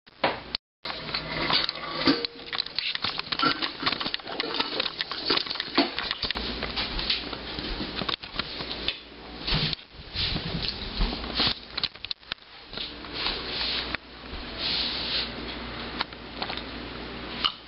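Handheld camera handling noise: rustling and rubbing with scattered clicks, knocks and light clatter throughout, broken by a brief gap about half a second in.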